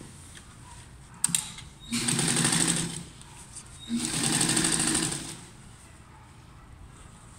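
Electric sewing machine stitching fabric in two short runs of about a second each, the first about two seconds in and the second about four seconds in. A sharp click comes just before the first run.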